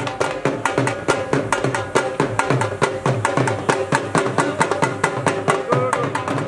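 Upbeat music driven by fast, even drum strokes, with a pitched melody note bending up and down near the end.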